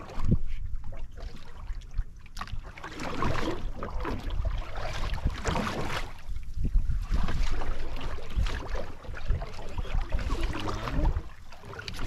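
Wind buffeting the microphone with a low rumble, mixed with sea water washing and splashing against the hull of a small outrigger boat in uneven swells.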